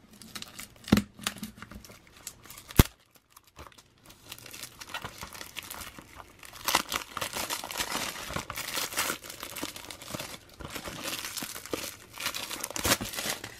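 Plastic shrink wrap being torn and peeled off a Blu-ray case. A few sharp clicks come first, the loudest a snap about three seconds in, then from about halfway the film crinkles continuously as it is pulled away.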